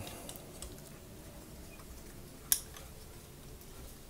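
Plastic parts of a Generation Toy GT-2 Tyrant transforming robot figure lightly clicking and rattling as its arm gauntlet is worked out and down, with one sharp click about two and a half seconds in.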